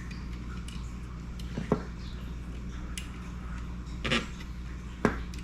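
A few sharp clicks and taps from handling a wire and small tools on a workbench, the loudest about two seconds in and the rest spread over the following three seconds, over a steady low hum.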